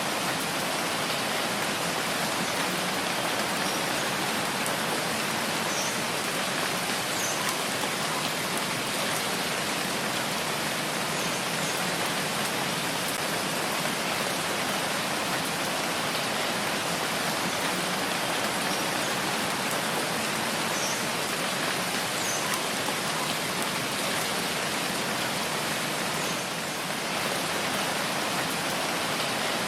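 Steady rain falling, an even dense hiss of drops on surfaces, easing slightly for a moment near the end.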